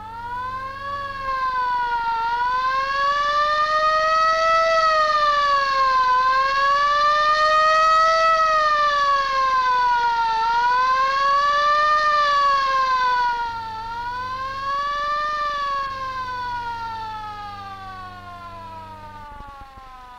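Electric air-raid siren on a station rooftop. It winds up from silence, then wails, its pitch rising and falling about every three to four seconds, and winds down and fades in the last few seconds. The rising-and-falling wail is the air-raid alarm signal.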